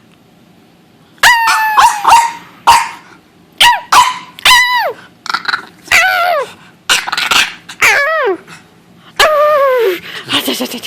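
A dog barking and howling in a run of short, loud, pitched calls in quick groups. Many of the calls slide down in pitch.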